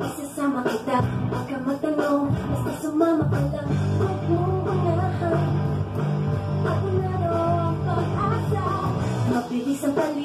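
Electric bass plucked along to a recorded rock song with a singing voice, the bass holding steady low notes under the sung melody.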